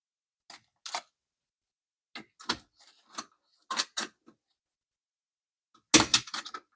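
Hand-work on dishwasher fittings: a scattering of separate knocks and clicks, then a louder burst of rattling clatter about six seconds in.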